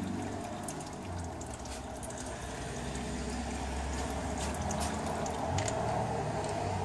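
Automatic transmission fluid draining in a thin, steady stream from the drain-plug hole of a GM 5L40E transmission's oil pan, pouring continuously into the catch container below.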